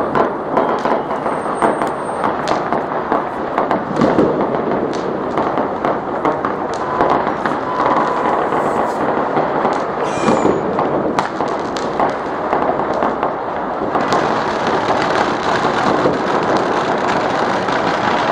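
Many distant firecrackers going off at once: a dense, unbroken crackle of sharp pops.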